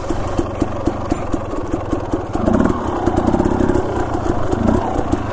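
Dirt bike engine idling with a steady, even beat, running slightly louder for a moment about halfway through.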